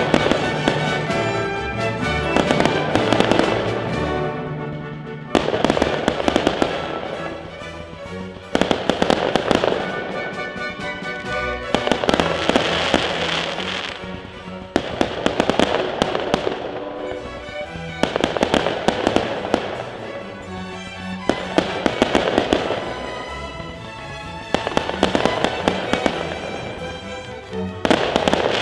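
Fireworks bursting and crackling over music, in swells about every three seconds.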